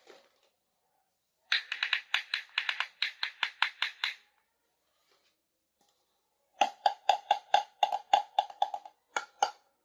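Rapid tapping on small plastic toy kitchen pieces: two runs of quick, lightly ringing taps, about five a second, the second run lower in pitch.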